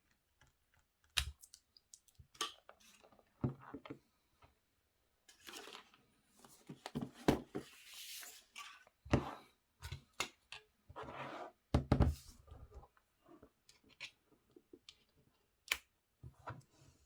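Packaging of a power adapter being handled and opened: irregular clicks and knocks, with spells of rustling and tearing, the longest a few seconds in.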